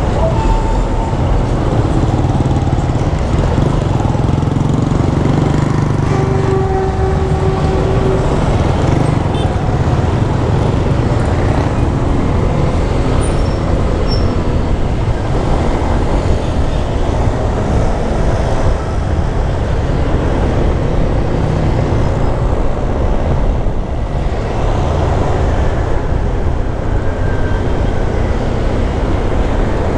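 Steady ride noise from a Honda Click 125 scooter, a 125 cc single-cylinder motor scooter, moving in traffic: a low rumble of wind, engine and road that holds at an even level.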